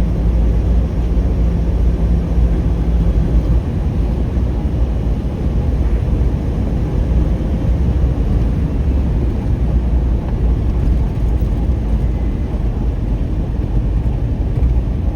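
Car cabin noise while driving: a steady low rumble of engine and tyres on the road, with a low hum that stops a few seconds in.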